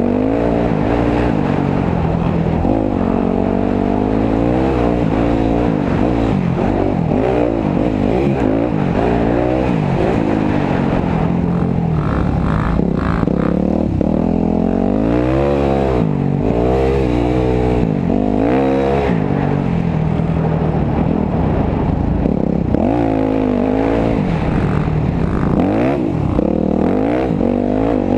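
Dirt bike engine heard from on board, revving up and falling off over and over as the throttle opens and closes and the gears change.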